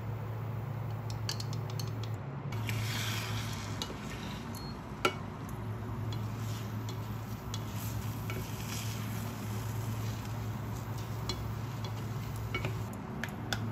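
Chopsticks clicking against a bowl as eggs are beaten, then a wooden spatula stirring and scraping egg and sausage in a saucepan, with light sizzling and scattered taps of utensil on pan. The loudest tap comes about five seconds in. A steady low hum runs underneath.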